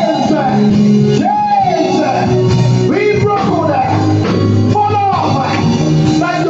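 Worship song: a singing voice with gliding, held notes over sustained instrumental chords and bass.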